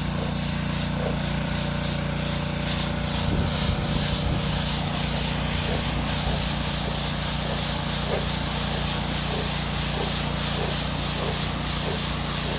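Pressure washer running steadily, its spray hissing on stamped concrete and swelling and fading in a regular swish as the wand sweeps back and forth. It is lifting leftover liquid release agent off the coloured concrete.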